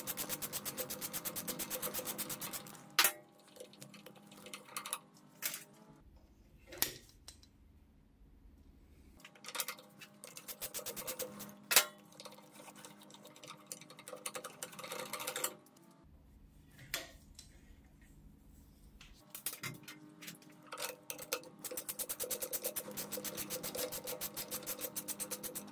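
Screwdriver working the screws of a rotary hammer drill's motor housing: fast runs of clicking at the start and again near the end, with scattered metal clinks and taps of tool and parts in between.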